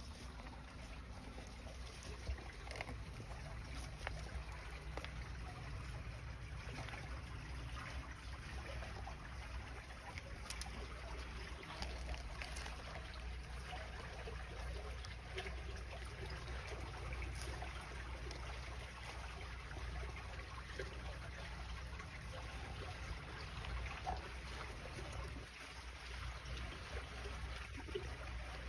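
Water running and trickling steadily in a covered roadside drainage ditch, with a low rumble underneath and a few small clicks.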